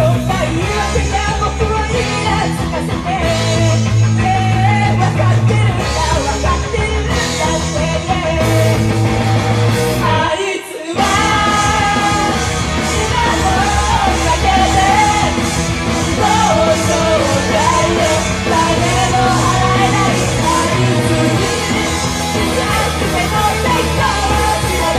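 Female idol singers performing live into handheld microphones over loud, rock-style music. The low end drops out briefly about ten and a half seconds in, then the full music returns.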